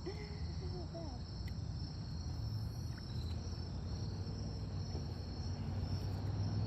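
Steady high-pitched chorus of insects trilling, with a low rumble underneath that grows toward the end.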